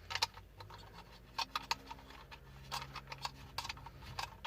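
A run of irregular light clicks and taps as a car USB charger socket is fitted through the dashboard panel from behind and its clamping ring is threaded on to tighten it in place.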